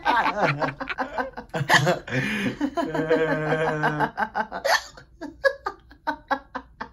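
A person laughing, with one long held note about three seconds in, then trailing off into a string of short, quick bursts that fade.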